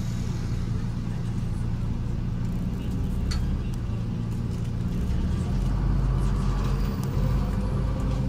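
City bus engine running with a steady low drone as the bus creeps through traffic, heard from inside the bus; the drone grows louder about five seconds in.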